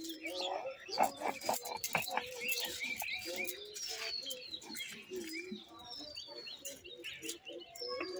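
Small birds chirping and twittering, with scattered short clicks and knocks.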